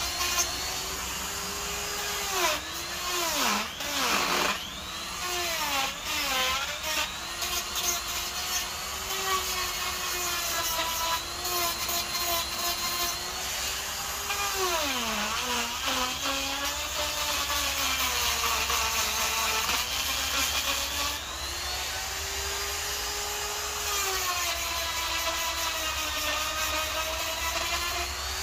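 Electric die grinder with a carving burr cutting into wood: a steady high motor whine whose pitch sags several times as the burr bites into the log under load, most deeply a few seconds in and about halfway, then climbs back.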